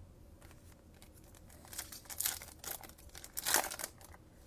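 Foil trading-card pack wrapper crinkling and tearing as the pack is opened, in several short rustles. The loudest rustle comes about three and a half seconds in.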